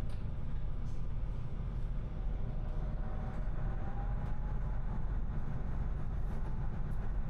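Diesel engine of a Class 350 Allan railcar running with a steady low rumble, heard from inside the cabin, with a few faint clicks.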